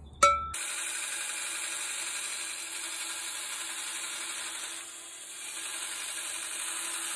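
A belt grinder running, with the edge of a thin steel disc ground against the belt to smooth its curve: a steady grinding hiss that eases for a moment about five seconds in. The grinding is preceded by a short sharp tone right at the start.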